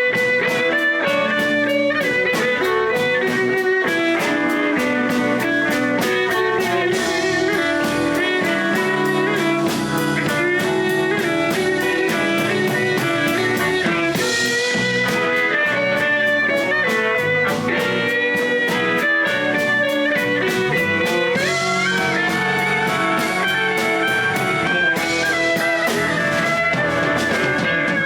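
Blues band playing, with guitar prominent over a steady beat.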